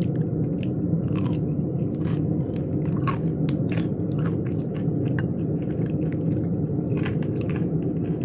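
Close-miked chewing and biting of food, with many short wet mouth clicks, over a steady low hum.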